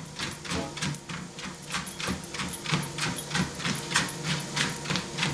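A Rhodesian ridgeback's paws pattering on a moving ProForm treadmill belt in a quick, even rhythm of about four to five steps a second, over the treadmill's steady motor hum.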